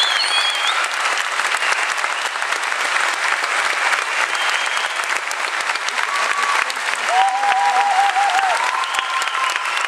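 Large audience applauding steadily in a hall, with a few voices calling out above the clapping, one near the start and a couple near the end.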